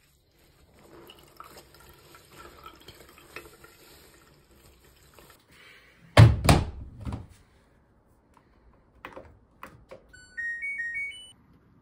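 Wet laundry being rinsed and wrung by hand in a basin, with faint splashing and rubbing. About six seconds in comes a loud double thump and a few knocks. Near the end, an LG TROMM front-loading washing machine plays its power-on chime: a short run of electronic beeps stepping upward.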